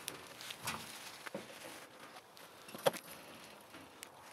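Faint rustling with a few scattered knocks and creaks as a person in boots climbs over a barbed-wire fence beside a wooden post. The sharpest knock comes about three seconds in.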